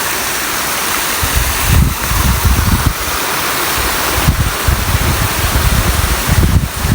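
Rushing water of a stream swollen by monsoon rain, a steady loud hiss, with wind buffeting the microphone in irregular gusts from about a second and a half in.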